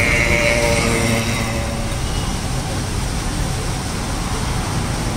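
Steady roadside traffic rumble and street noise, with chilli fritters (mirchi bajji) sizzling in a kadai of hot oil during the first couple of seconds.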